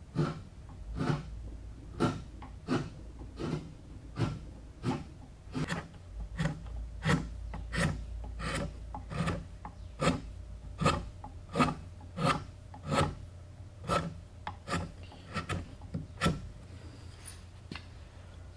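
A hand tool being worked back and forth over wood in steady, regular strokes, about three every two seconds.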